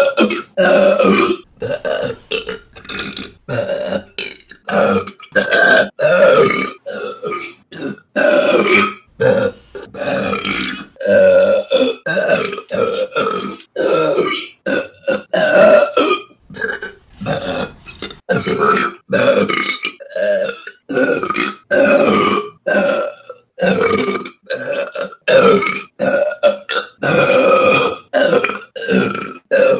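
A woman burping over and over: short, pitched burps cut together back to back, about one or two a second, each starting and stopping abruptly.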